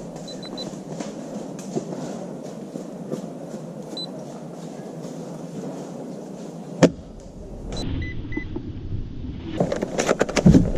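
Steady outdoor rumble with faint ticks, broken about two-thirds through by a single sharp airsoft gunshot crack. A quick clatter of sharp clicks and knocks follows near the end.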